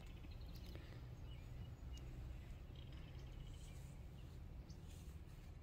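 Faint outdoor ambience: a low steady rumble with a few faint high chirps and ticks.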